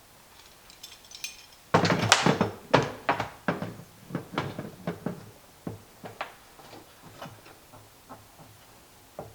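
Metal C-clamps being handled and set against the compost tumbler's lid ring. A burst of knocks and clatter about two seconds in is followed by a string of lighter clicks and taps that grow sparser, with one sharp tap near the end.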